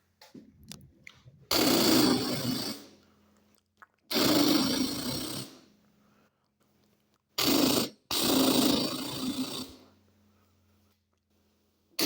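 A person making machine noises with the mouth, like a drill or engine: four rough, buzzing bursts, each lasting about a second and fading out, with a faint steady hum in the gaps.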